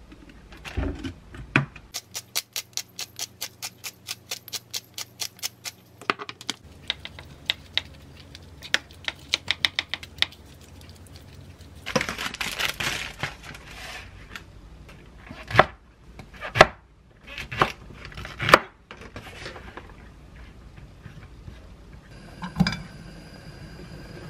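Kitchen food-prep handling sounds: a run of quick, even clicks about four a second, a crinkling stretch of plastic packaging being pulled off a tray of beech mushrooms, then several sharp knocks. A steady hum sets in near the end.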